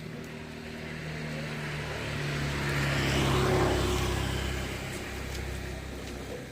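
A motor vehicle's engine passing by. It swells to its loudest about three and a half seconds in, drops a little in pitch, then fades.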